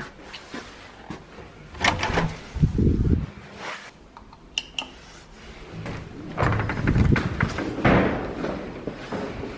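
Doors being worked by hand: latches clicking and doors thudding heavily shut, with a push-to-exit door release button pressed and a short high beep about halfway through. A stretch of further knocks and handling noise follows near the end.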